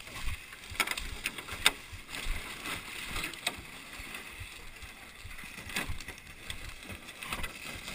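A flat-bottomed jon boat knocking and scraping as it is handled on a bank of dry leaves, with footsteps crunching through the leaf litter. There are several sharp knocks, the loudest about one and a half seconds in.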